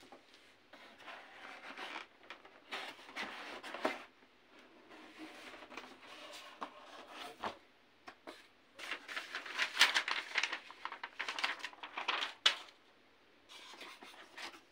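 Cardboard box and its packing being handled: irregular rustling and scraping of cardboard, paper sheets and styrofoam inserts, with a few sharp knocks, busiest in the second half.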